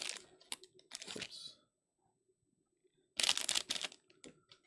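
Foil trading-card pack wrapper crinkling as it is handled, in two short bursts, about a second in and again just past three seconds, with a few light clicks of cards being handled.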